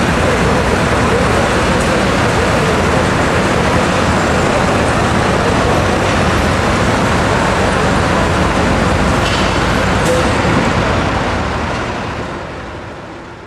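Pulling tractors' turbocharged diesel engines running steadily and loud, then fading out over the last two seconds.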